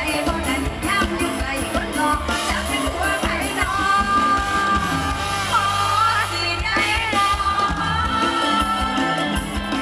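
Live Isan mor lam music through a PA system: a woman sings the melody into a microphone over a band with drum kit, congas and bass.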